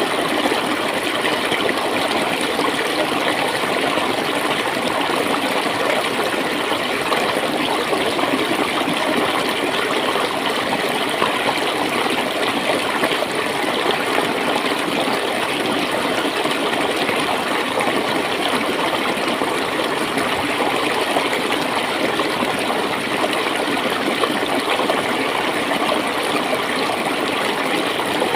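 Shallow clear water flowing and gurgling steadily, an even rush with fine bubbling detail.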